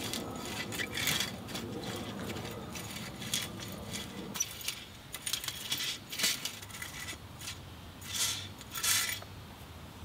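Metal-tined lawn rake scratching through bare soil in a series of short strokes, working grass seed in.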